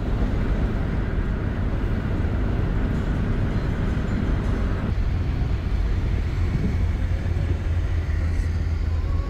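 Steady low road and engine rumble inside a moving car's cabin. About five seconds in, a rushing noise above the rumble drops away suddenly.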